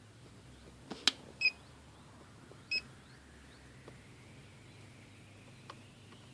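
Handheld car diagnostic scan tool giving two short electronic beeps, a little over a second apart, just after a couple of sharp button clicks, as it reads the engine's fault codes.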